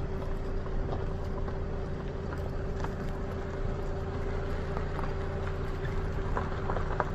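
Car engine running steadily, heard from inside the car: a constant low hum with a steady higher tone above it, and a few small clicks.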